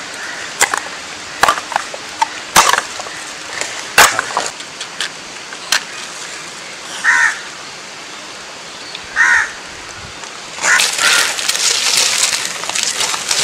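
Dry coconut shells clacking and knocking as they are dropped into an earth pit, a handful of sharp knocks over the first six seconds. A crow caws twice in the middle, and from about ten seconds in, dry leaves heaped over the pit set up a dense rustling crackle.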